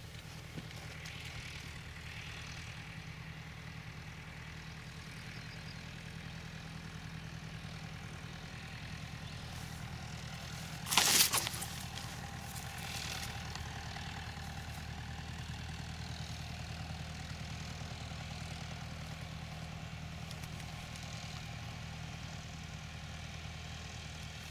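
A steady low hum like an engine running, unchanged throughout. A brief loud noise cuts in about eleven seconds in, with a fainter one soon after.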